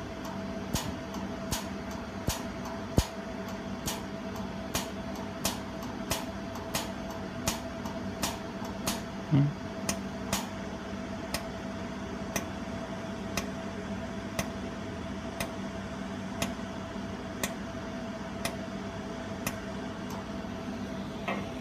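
Pulsed jewelry laser welder firing on metal plates: a regular series of sharp snapping clicks, about two a second at first, then slowing to about one a second. The machine's steady hum runs underneath.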